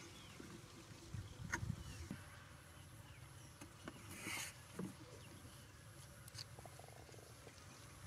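Faint handling sounds of hands working on a cardboard box: scattered small taps and clicks, with a brief rustle about four seconds in. Under them runs a faint, high, on-and-off tone.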